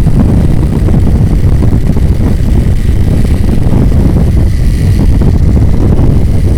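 Playing card flapping against the spokes of a turning bicycle wheel: a loud, fast, steady clatter that sounds like a motor running.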